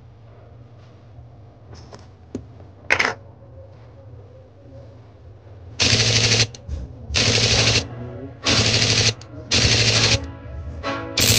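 Nikon D7500's shutter and mirror firing in five short bursts from about six seconds in, each a rapid chatter of clicks lasting about half a second. The shutter is firing faster than a normal shot, the symptom of the camera's aperture-assembly fault.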